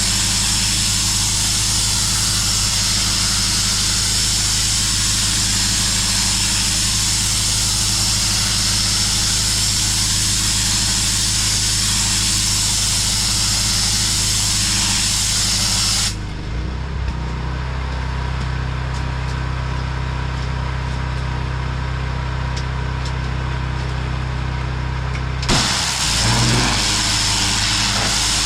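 Pressure washer at work: its engine runs steadily under the loud hiss of the high-pressure spray on concrete. About two-thirds of the way through the spray stops and only the engine's drone remains, shifting in pitch. Near the end the spray starts hissing again.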